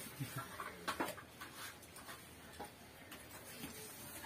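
Faint, scattered clicks and light taps of people eating rice with their hands from steel plates.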